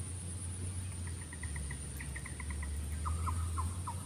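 A bird calling in quick series of short chirps, about four or five a second, starting about a second in; from about three seconds in they become short falling notes. A steady high-pitched insect buzz runs throughout.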